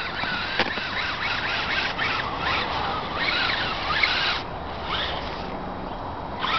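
Axial Wraith RC crawler's electric motor and gear train whining in bursts as the throttle is worked, the pitch rising and falling. It goes quieter for about two seconds near the end before another burst.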